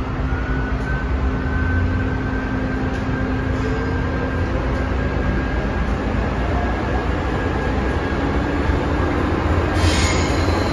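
Interior running noise of an MTR Metro-Cammell M-Train (modernised train) moving through a tunnel: a steady rumble with traction whine slowly rising in pitch as the train gathers speed. There is a brief hiss near the end.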